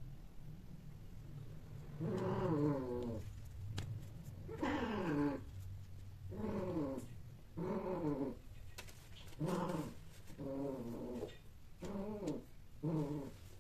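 A domestic cat growling low, then giving a series of about eight drawn-out, wavering yowls a second or so apart.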